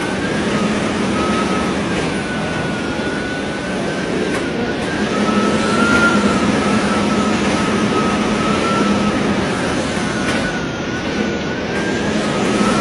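Hurricane wind and driving rain, a steady loud roar that swells and eases, with a faint high whistle wavering in pitch throughout.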